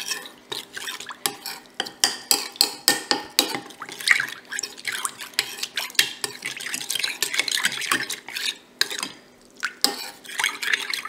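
A metal spoon stirring custard powder into cold milk in a bowl, clinking quickly and repeatedly against the bowl's sides. The clinks pause briefly near the end, then a few more follow.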